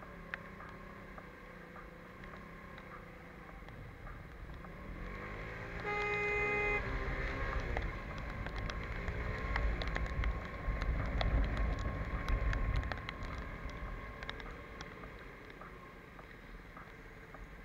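Piaggio X Evo 125 scooter riding on a wet road: steady engine and road noise whose rumble swells louder through the middle. A vehicle horn sounds once, for under a second, about six seconds in.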